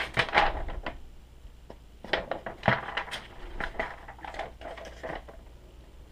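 Handling noises: rustling paper and light clattering as packaging and the boat's paper instruction manual are picked up and opened. They come in short bursts, once during the first second and again from about two to five seconds in.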